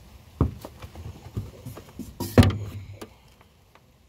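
A series of irregular knocks and thumps, the loudest about two and a half seconds in, dying away after about three seconds.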